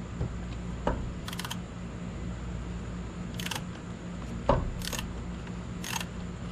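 Hand tools being handled with a Torx bit: a handful of short, sharp metallic clicks and clinks at irregular moments, over a steady low hum.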